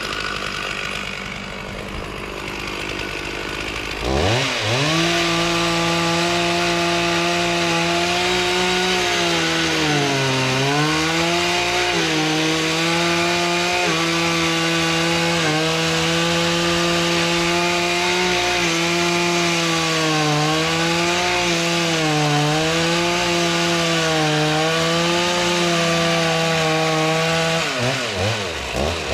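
Two-stroke chainsaw revved to full throttle about four seconds in and held there while cutting wood. Its high steady whine dips in pitch several times as the chain bogs in the cut, then drops back to idle near the end.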